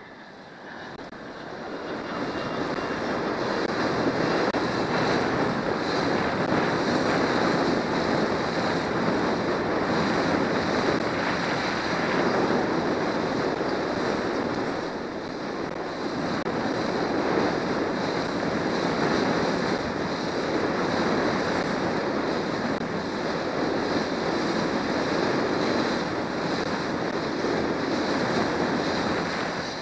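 Small motorboat running across open water: wind buffeting the microphone and water rushing past the hull, over the Johnson 90 hp outboard motor. The noise builds over the first few seconds, then holds steady.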